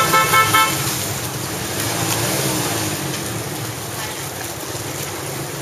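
Small motorbike engines running through shallow floodwater, with a steady wash of water and voices around. A short high-pitched tone sounds in the first half-second.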